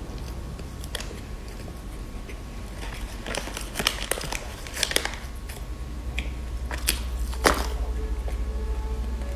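Crinkly plastic snack wrapper being handled and torn open: scattered crackles that cluster in the middle, then one louder crackle late on, over a steady low hum.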